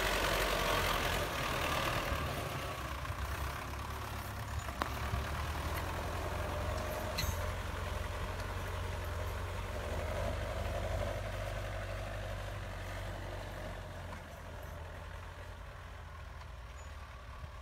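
Belarus 820 tractor's four-cylinder diesel engine running steadily under load as it pulls a disc plough through the soil, fading gradually as the tractor moves away. A couple of short sharp clicks about five and seven seconds in.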